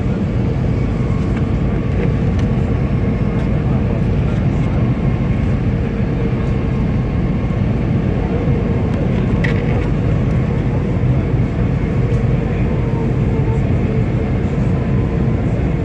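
Airliner cabin noise heard from a window seat in flight: jet engines and rushing air making a loud, steady low noise with a constant hum running through it.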